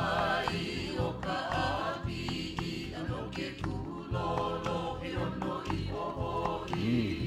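A song sung in Hawaiian over instrumental accompaniment with a steady beat; the lyric praises the ʻāpiʻi taro.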